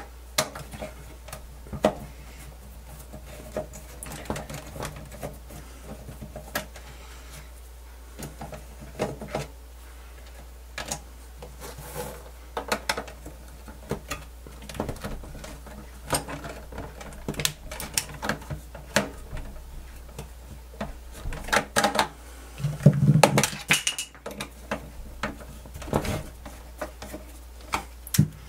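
Screwdriver and small screws being worked on a cassette deck's front panel and chassis: scattered light clicks and metallic taps as screws are turned out and handled, with a louder clatter of parts about three quarters of the way through.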